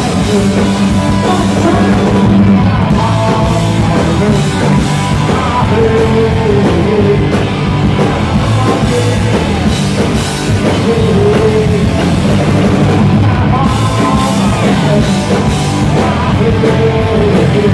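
Live punk rock band playing loud: electric guitars, bass guitar and a drum kit, with a man singing lead vocals over them.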